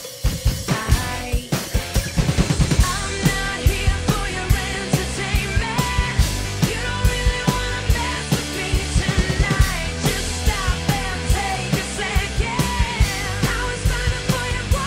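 Acoustic drum kit played live along to a recorded pop-rock track: steady snare and kick hits with cymbal crashes over the song's band sound. A brief dip at the very start, then the beat runs on.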